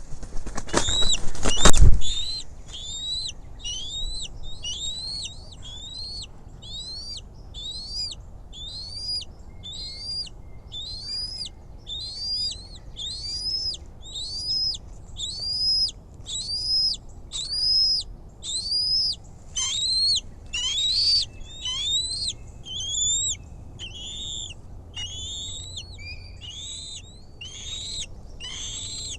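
Bald eagle calling: a long series of high, thin whistled chirps, a little over one a second, each note rising then dropping. The series starts after a loud rushing noise in the first two seconds.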